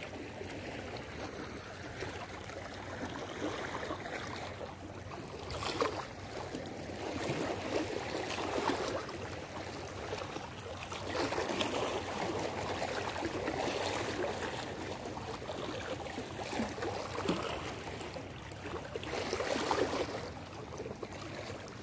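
Small sea waves lapping and washing over shoreline rocks, the wash swelling and easing every few seconds with a few brief splashes.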